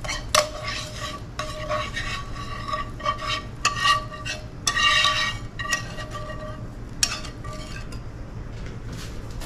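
Wire whisk scraping thick gravy out of a metal skillet into a glass measuring cup: a run of irregular metal scrapes and taps, the pan ringing with the strokes.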